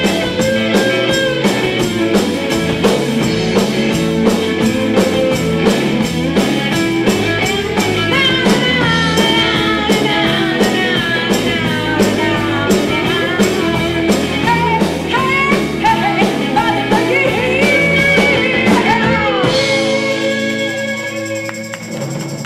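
Live band playing a rock-style song with a steady drum beat, guitar and a sliding lead line; about 20 seconds in the beat stops and the band holds a final chord that rings out and fades.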